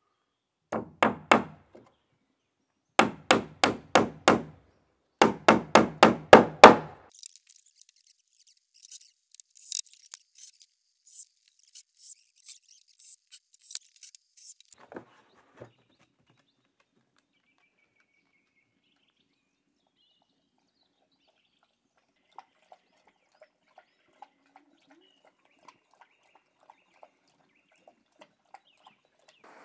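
Hammer driving nails into wooden roof shingles: three runs of quick, loud blows in the first seven seconds, each run longer than the last. Faint scraping and handling follows, then only a few faint ticks.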